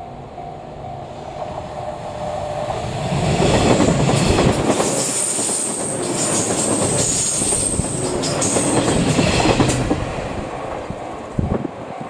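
A cream-and-red JNR-style limited-express electric train passing close by on a curve: a level-crossing warning bell rings, then the train's wheels rush and clack over the rail joints with a high wheel squeal, swelling about three seconds in and fading near the end, when the crossing bell can be heard again.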